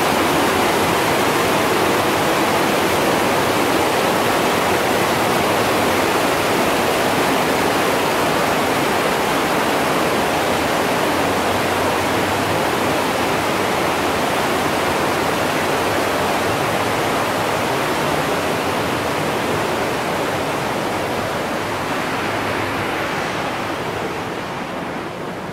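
Steady rushing of water inside a cave, growing fainter near the end.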